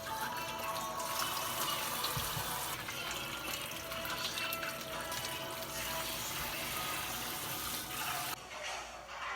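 Water running from a kitchen tap into a sink over background music. The running water stops about eight seconds in.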